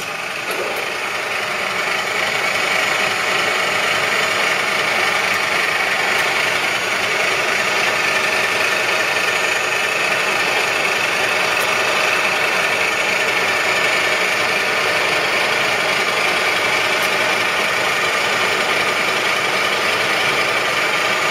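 Union BFT125/5 horizontal boring machine running while its headstock traverses down the column under power. It makes a steady mechanical hum and whine of motor and gearing that builds over the first couple of seconds, then holds even.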